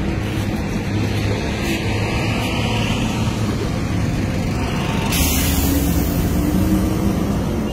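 A motor vehicle's engine running, a steady low rumble; a hiss joins suddenly about five seconds in.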